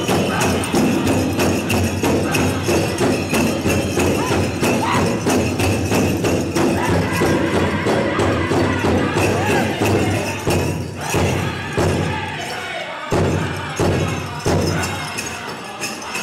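Powwow drum group: a large hand drum beaten in a steady pulse with men singing, and the dancers' bells jingling. About ten seconds in the sound thins out to more widely spaced drumbeats.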